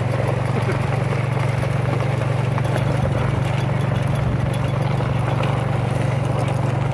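ATV engine running steadily as it is ridden along, a continuous low hum with no change in pitch.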